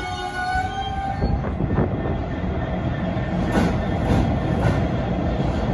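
Freight train wheels on rail. A squeal rings in a few steady tones for about the first second, then gives way to a steady rumble. Over the last two seconds there are rhythmic clacks about twice a second.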